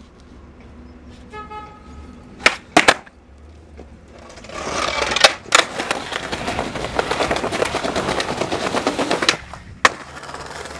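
Skateboard on rough tiled pavement. Two sharp board clacks a few tenths of a second apart come about two and a half seconds in, as the board is popped and lands. About four seconds in, loud wheel rolling noise starts, with further sharp clacks of the board about a second later and near the end.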